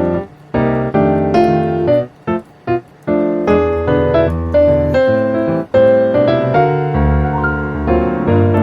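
Background piano music, chords and melody notes at a moderate pace, with two brief pauses, one just after the start and one about two seconds in.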